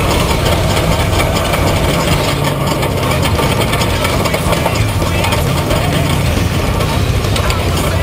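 Off-road race truck's engine running steadily at speed, mixed with broad noise from the open, moving truck.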